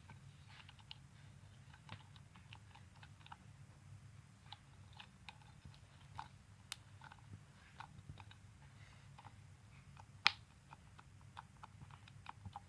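Stretchy slime being stretched and pressed in the hands, making faint sticky clicks and small pops at an irregular pace, with one louder pop about ten seconds in. A low steady hum sits underneath.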